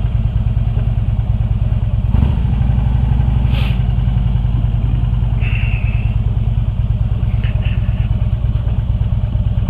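Harley-Davidson V-twin motorcycle engine running as the bike pulls away and rides on, with a brief change in the engine note about two seconds in.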